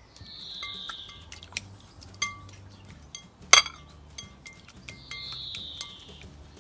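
Wire whisk beating a liquid batter in a glass mixing bowl: irregular clinks of the wires against the glass, each with a short ring, the sharpest about three and a half seconds in. Two longer, slightly falling high notes of about a second each sound near the start and about five seconds in.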